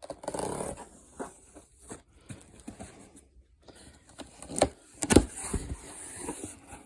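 Box-set packaging being handled and opened by hand: scrapes and rustling with scattered clicks, and two sharper knocks a little past halfway.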